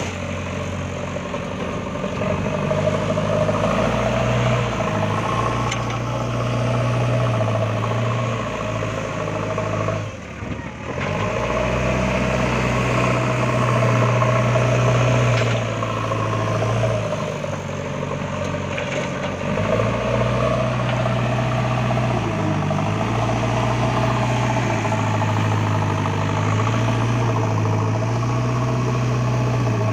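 Heavy diesel engine of earthmoving machinery running at working speed, its note swelling and easing with the load. It drops away briefly about ten seconds in.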